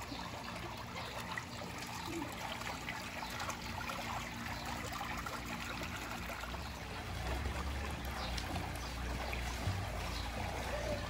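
Steady trickling, running water, with a low rumble that grows louder about seven seconds in.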